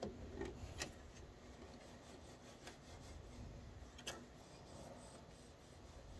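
Faint rubbing of a cloth wiping an Epson Artisan 1430's print head, with a few light clicks, the clearest about a second in and about four seconds in.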